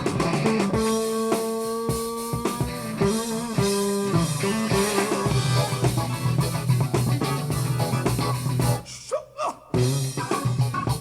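Funk-rock band music (guitar, bass and drum kit) played back through Klipsch R-15PM powered speakers. The band drops out for under a second about nine seconds in, then comes back.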